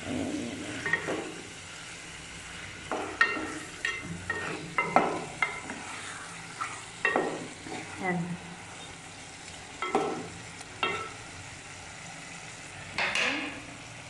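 Chicken pieces sizzling in oil in an aluminium pot while a wooden spoon stirs them, with irregular scrapes and knocks of the spoon against the pot over the steady sizzle.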